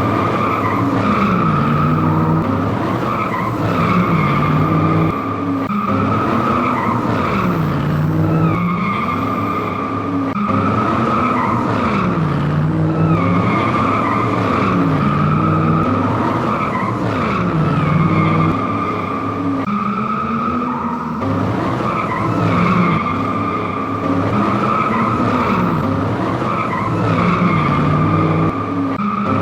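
Drift-car sound effects: a car engine revving up and falling back about every two seconds over a continuous tyre squeal.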